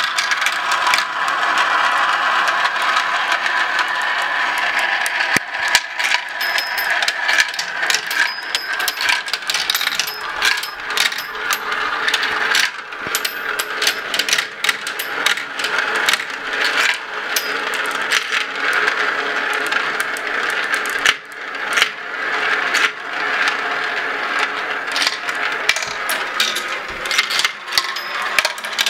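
Several marbles rolling and rattling down a plastic marble run: a continuous rolling rumble as they circle the plastic funnel bowls, dotted with many sharp clicks and clacks as they drop and strike the plastic pieces.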